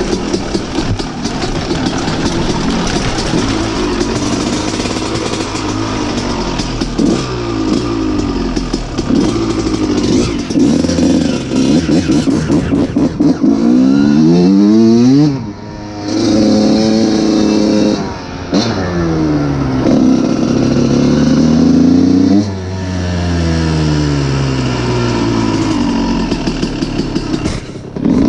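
Kawasaki KX125's 125 cc single-cylinder two-stroke engine being ridden hard, its pitch repeatedly climbing and falling with the throttle and gear changes. The engine note drops away briefly twice around the middle as the throttle is shut.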